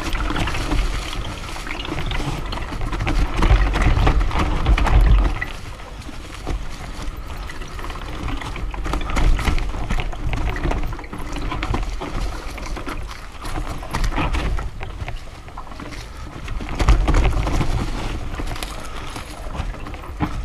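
Mountain bike riding down a forest trail: tyres rolling over dry leaves and dirt, the bike rattling over bumps, with gusts of wind rumble on the microphone.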